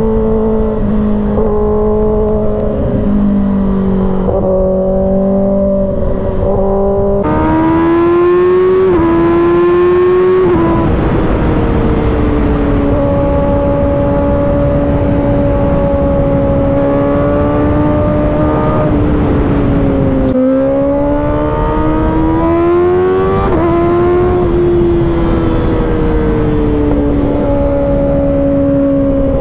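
2024 Kawasaki ZX-6R's 636 cc inline-four engine at highway speed under steady wind rush. It revs up sharply about seven seconds in, climbing and then dropping in quick steps as it shifts up, and pulls up through the revs again about twenty seconds in.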